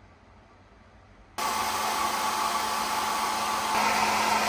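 A small electric appliance running with a steady rushing noise and a motor hum, switching on abruptly about a second and a half in; it grows a little louder and brighter near the end.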